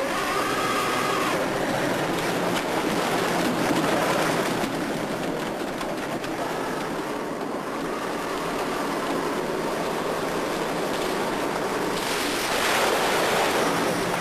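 Steady rushing noise of water and a working fishing boat, with a louder surge near the end as seawater churns into the boat's hold.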